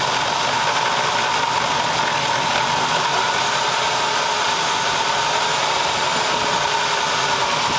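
2002 Dodge Caravan's 3.3-litre V6 idling with a steady high-pitched squeak over the engine noise. The owner puts the squeak down to the alternator, which had a wiggle to it.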